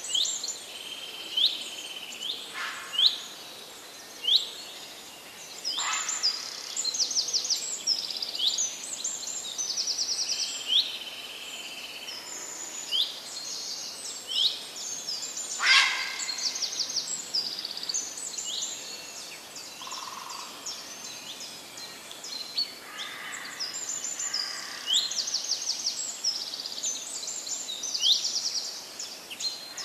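A busy chorus of small birds chirping: quick hooked notes and short rapid trills, many overlapping, over a faint steady outdoor hiss.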